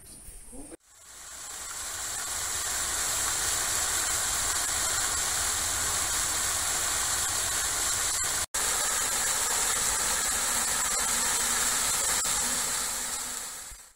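Rows of fountain jets spraying and splashing into a shallow pool: a steady hiss of falling water that fades in about a second in, breaks off for an instant about halfway, and fades away near the end.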